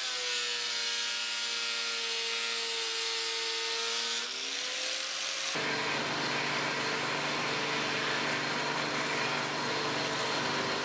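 Angle grinder with an abrasive disc grinding a wooden board. Its motor pitch dips as the disc bites in and climbs again about four seconds in. About five seconds in, it gives way to a belt grinder sanding the edge of a thin wooden board: a steady motor hum under a loud, rough sanding hiss.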